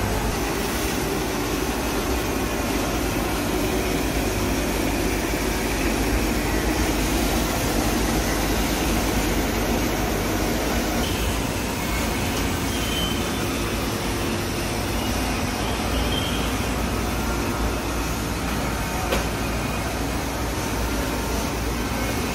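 Steady rushing air and low hum of running factory machinery on a chocolate coating and polishing line, with its air-handling and cooling units blowing.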